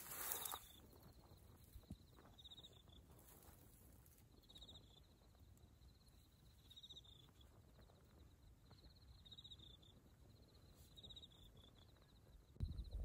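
Faint insect chirping, short pulsed trills repeating about once a second over a low rumble. A much louder low rumble starts near the end.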